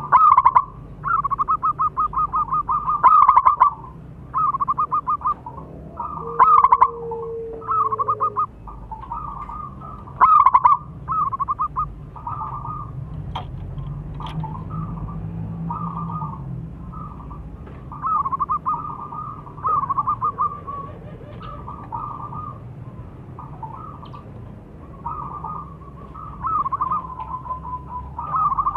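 Zebra doves cooing: a string of short phrases, each a fast run of clipped, rolling coos lasting about a second, repeated every second or two. Some phrases are loud and others fainter.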